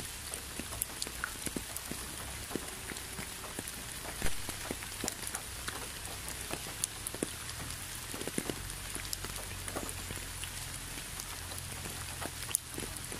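Rain falling: a steady hiss with many scattered drops tapping, and one louder drop about four seconds in.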